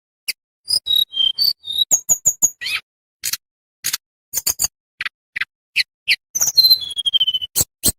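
Tledekan bambu, a small songbird, singing a rapid string of short sharp chirps and clear whistled notes, with a falling trill near the end.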